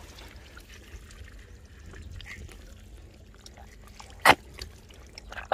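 Hands working in wet mud and shallow water at a field-crab burrow, with small squelches and trickles, and one sharp wet smack about four seconds in.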